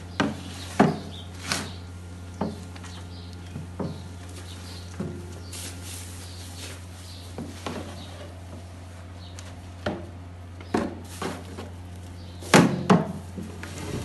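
Shovel scooping feed from a metal cart and tipping it into plastic troughs: irregular scrapes and clunks roughly a second apart, the loudest a quick double knock near the end, over a steady low hum.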